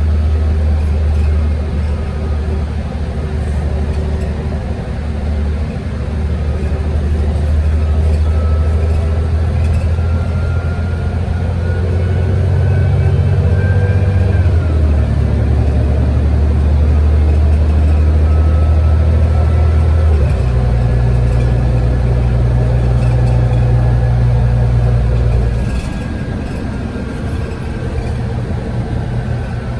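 City transit bus engine and drivetrain heard from on board, a loud low drone under way. A faint whine climbs and then drops about halfway through, and the engine note steps up about two-thirds of the way in before easing near the end.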